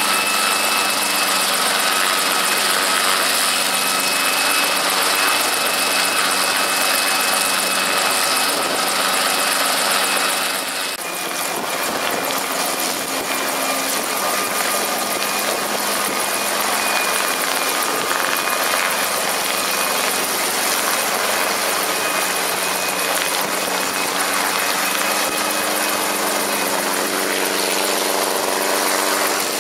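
Brantly B-2B helicopter's Lycoming piston engine and rotor running steadily at power as it lifts into a low, slow hover taxi, with a steady high-pitched whine over the engine. The sound dips briefly about a third of the way in, then carries on steady.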